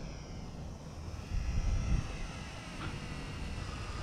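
Small electric RC warbird's motor and propeller whining in flight, the pitch drifting slowly up and down, with wind rumbling on the microphone.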